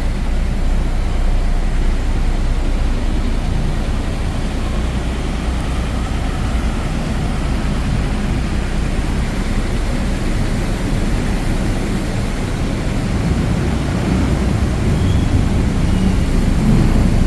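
Steady low rumble of city traffic on a wet road, with an even hiss of rain and tyres on the wet surface.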